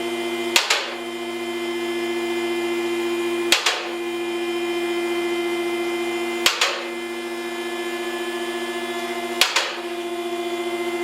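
Background music: a sustained, steady chord with a sharp percussive hit about every three seconds.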